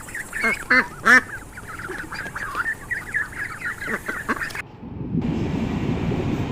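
White domestic ducks quacking, many short overlapping calls from several birds. About five seconds in, the calls stop abruptly and a steady low rumbling noise takes over.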